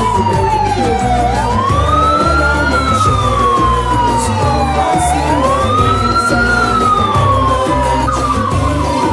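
Vehicle siren wailing in a slow cycle: the pitch rises quickly and then falls more slowly, repeating about every four seconds, over a low rumble.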